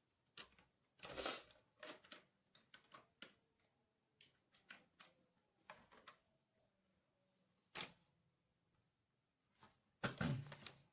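Irregular small plastic clicks and snaps as a laptop's casing is pressed and fitted shut by hand, with one sharper click about eight seconds in and a louder flurry of handling near the end.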